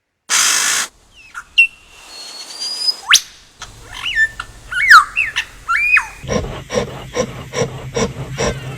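Animal calls: a short hiss, then whistled chirps gliding up and down, then a run of pulsed calls about three a second.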